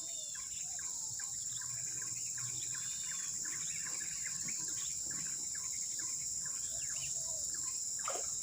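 Insects making a steady high-pitched drone, with many short bird chirps and calls over it.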